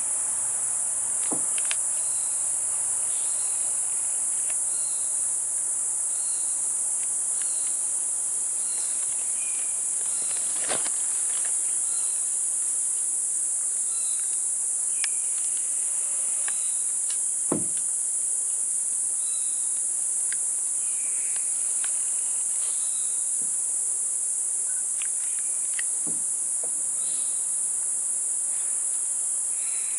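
Steady, high-pitched chorus of rainforest insects, unbroken throughout, with scattered short high chirps and a few sharp knocks, the loudest about 17 seconds in.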